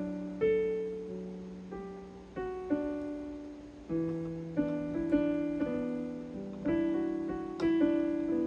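Casio CT-S1 portable keyboard played slowly by hand, chords and single notes struck about once a second, each ringing and fading away.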